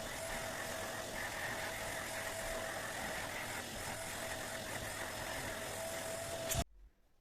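Vacuum cleaner motor running steadily with a constant whine, then switched off abruptly near the end.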